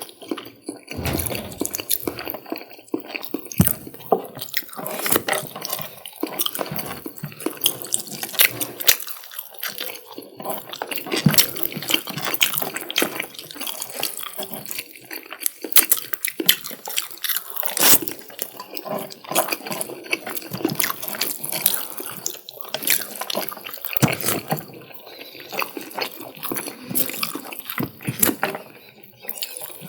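Close-miked wet chewing and mouth sounds of eating chicken curry with rice: a dense, continuous run of short sticky clicks and smacks.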